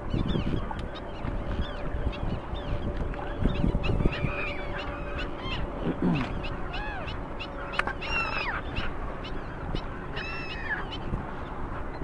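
A flock of waterbirds calling: many short, arched calls overlapping one another, with the loudest calls about eight and ten seconds in.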